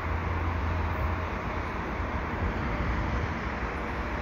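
Steady low rumble of distant road traffic, even in level throughout.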